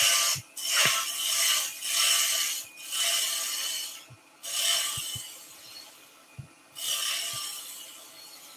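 A turning tool cutting into wood spinning on a lathe, rounding it over: a hissing, scraping shaving noise in three passes with short pauses between, the last fading out near the end.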